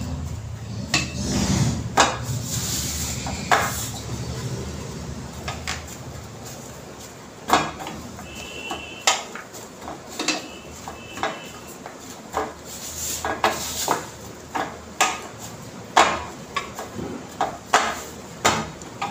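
Dough being kneaded by hand in a steel bowl: irregular knocks and clatter of the bowl against the counter, more frequent in the second half.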